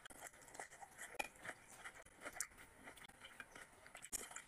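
Faint close-up chewing and wet mouth clicks of a person eating rice and mutton curry by hand, a scatter of small irregular clicks.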